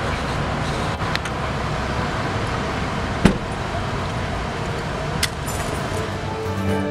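Steady running of vehicle engines and road traffic, with one sharp click about three seconds in and fainter clicks about a second in and near five seconds.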